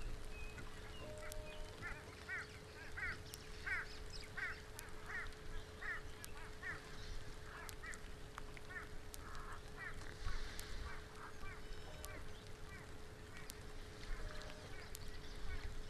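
A bird calls a rhythmic series of about a dozen short, repeated notes, roughly two a second, starting about a second in and fading away by the middle. Underneath, rain falls on water, with scattered sharp ticks of drops.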